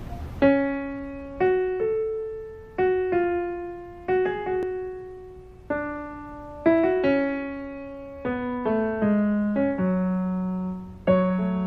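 Background piano music: a slow, gentle melody of single notes, each struck and left to ring and fade.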